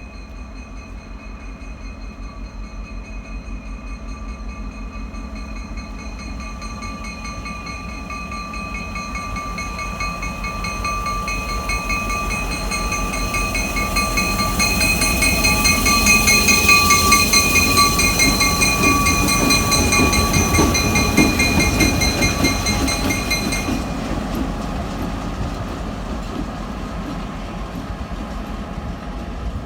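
A freight train rolls past, its rumble and wheel noise building to a peak in the middle and then easing off. Over it runs a steady high-pitched ringing tone that stops abruptly about two-thirds of the way through.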